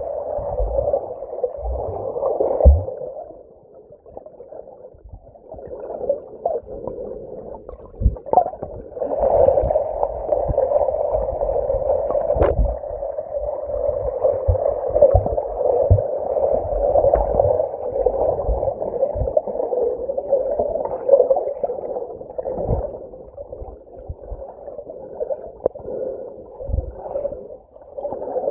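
Muffled underwater noise from a camera submerged in lake water: a dull, rushing wash with low thumps and knocks scattered through it. It fades about four seconds in and returns strongly about nine seconds in, with a single sharp click near the middle.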